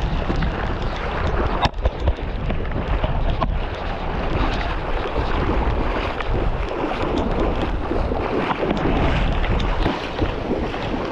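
Strong wind buffeting the microphone over the rush of breaking surf from a rough sea, with a couple of sharp clicks.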